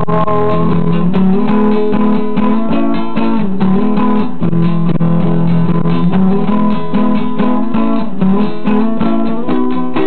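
Acoustic guitar (violão) strumming chords in a steady rhythm, an instrumental passage of a song.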